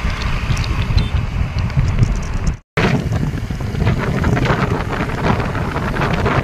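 Wind buffeting the microphone of a moving vehicle, a loud rough rumble mixed with road noise. It drops out completely for a split second near the middle, at a cut in the footage, then carries on.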